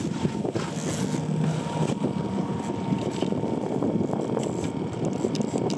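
A motorboat running at sea: a steady engine drone mixed with the rush of water and wind, with a faint steady whine on top.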